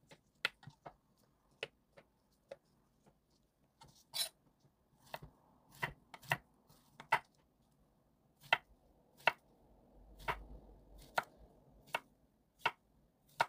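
Kitchen knife slicing a Korean zucchini into thick rounds on an end-grain wooden cutting board: a series of separate knocks as the blade cuts through and meets the board. The knocks are irregular and sparse at first, then come about one a second.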